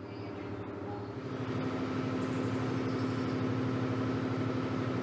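Steady drone of a tugboat's diesel machinery heard from inside the vessel: a hum of several even tones that grows a little louder about a second in, then holds.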